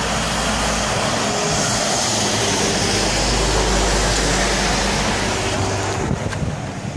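Steady rushing road and wind noise of a moving car, with a low rumble and a few knocks near the end.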